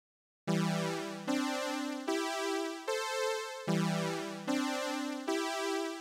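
BeepBox browser synthesizer playing a sawtooth lead: after half a second of silence, a rising phrase of four notes, one about every 0.8 s and each fading a little, which then plays a second time.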